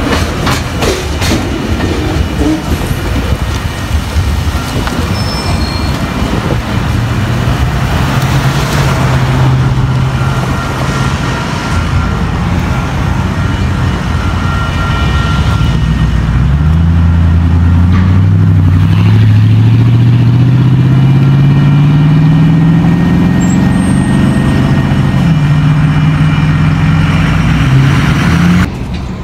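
Freight cars rolling over a grade crossing with clicks and rumble. About halfway through, a vehicle engine starts accelerating: its pitch climbs steadily, drops back twice as it shifts gear, and climbs again. It becomes the loudest sound and is heard from inside the cabin.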